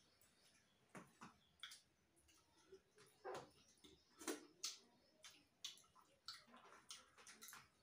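Faint eating sounds of people eating rice and curry with their fingers from steel plates: a scatter of short clicks and smacks, a little louder in the middle.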